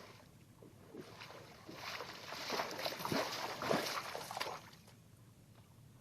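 Water splashing and sloshing, building for about three seconds and then dying away.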